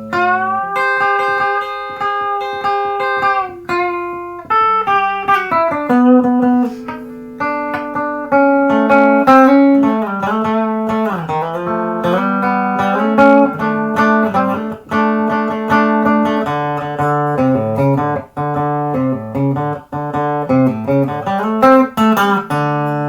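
Peerless ES-345 semi-hollow electric guitar played through a Crate amp: a melodic passage of long ringing single notes and chords, with slides between pitches around the middle.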